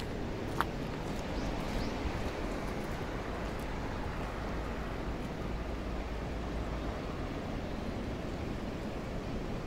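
Steady outdoor background noise, a low rumbling hiss without any distinct event, with one short click about half a second in.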